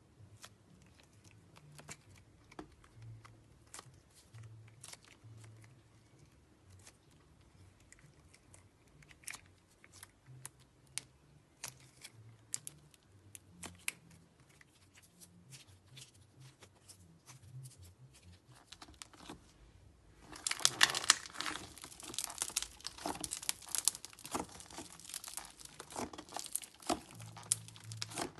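Mirror putty (metallic slime) being squeezed and stretched, trapped air bubbles popping in scattered small clicks and pops. About two-thirds through it turns to a louder, dense run of crackling pops.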